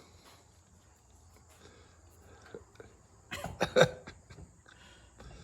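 Low background hush, then a man's short burst of laughter about three seconds in.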